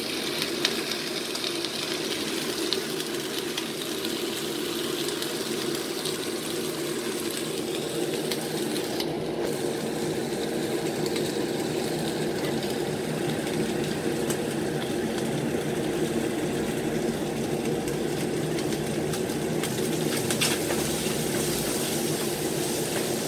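A steady motor hum with an even hiss over it, running without change, and a light click about twenty seconds in.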